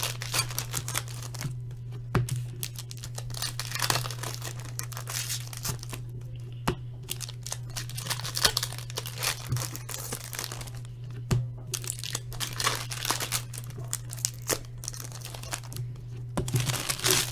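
Foil trading-card pack wrappers and cards being handled, crinkling and rustling in irregular bursts with a few sharp clicks. A steady low hum sits underneath.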